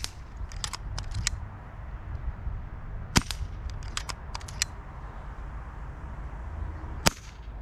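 Brocock Atomic XR PCP air carbine fired three times, roughly three to four seconds apart, each shot a sharp crack. Fainter clicks follow the first two shots.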